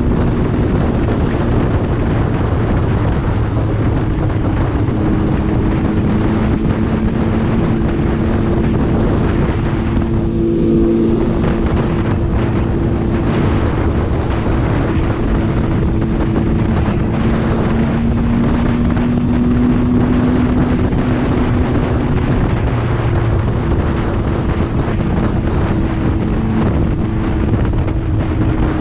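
MV Agusta Dragster RR's 800 cc three-cylinder engine running at a steady cruising speed, its note holding nearly constant. Heavy wind rushes over the microphone, with a brief change in the engine note about ten seconds in.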